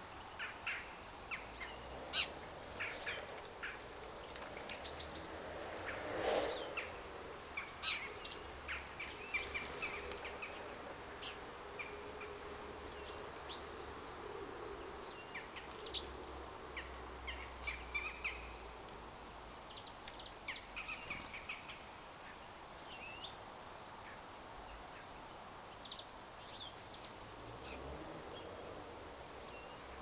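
Small garden birds calling: short, scattered chirps and tweets, with a few sharp ticks, the loudest about eight seconds in.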